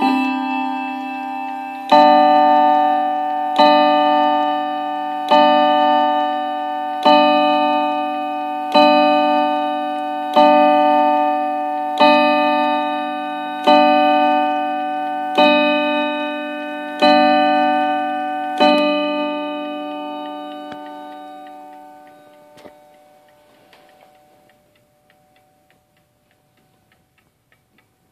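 Hermle 1051-020 mantel clock movement striking the hour on its steel chime rods: eleven ringing strikes about 1.6 seconds apart, just after the last notes of the chime tune. The ringing fades away over a few seconds, leaving the movement's faint ticking.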